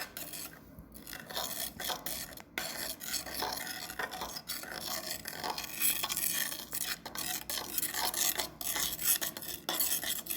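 A utensil stirring and scraping against a bowl, with a steady scratchy rasp and many rapid small clicks.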